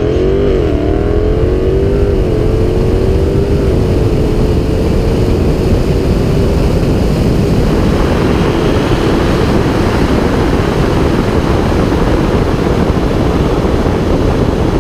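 A car running at speed: a pitched drone wavers and dips over the first couple of seconds, then holds steady while a loud, even rush of road and wind noise takes over.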